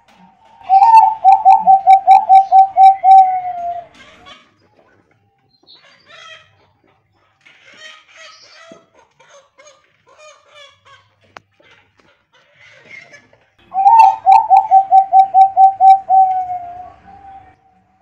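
Bangkok-type zebra dove (perkutut) singing: two bouts of rapid, staccato cooing, each about a dozen notes over some three seconds, sliding slightly lower at the end.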